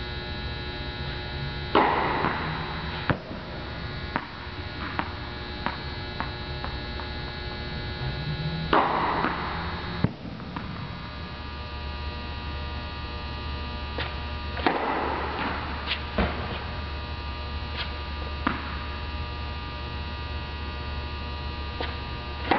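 Tennis balls struck by a racquet, a few sharp hits that echo through the tennis hall, the last as a serve is hit near the end, with smaller ball knocks in between. A steady electrical hum runs underneath.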